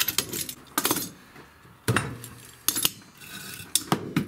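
Sharp metallic clinks and clanks, about six spread over a few seconds, as the locking C-clamps are released and the drilled steel bar is lifted off the drill press table.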